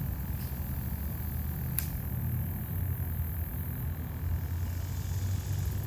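Steady low rumble of outdoor background noise, with faint clicks about half a second and nearly two seconds in.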